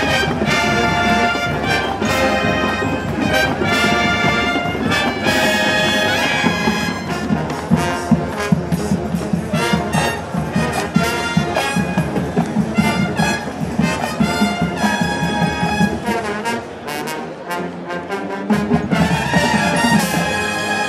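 Marching band playing, its brass section of trumpets, trombones and sousaphones carrying the tune over steady drum beats. The band drops briefly softer about two-thirds of the way through, then comes back in at full volume.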